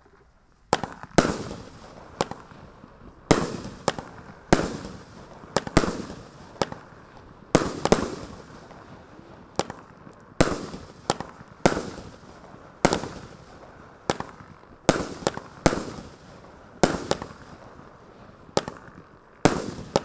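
26 mm 20-shot firework cake firing its shots in sequence: sharp bangs roughly a second apart, starting just under a second in, many followed by a quicker, quieter pop or two.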